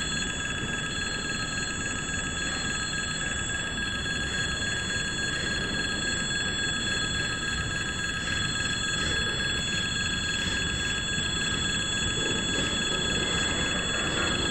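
Level-crossing warning bell ringing steadily over the rumble of a freight train's container wagons rolling past on the rails.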